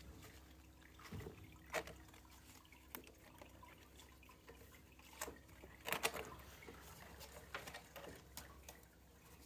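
Faint, scattered taps and scuffles of kittens' paws as they play and climb about a cardboard scratcher and the bars of their pen, the loudest cluster about six seconds in.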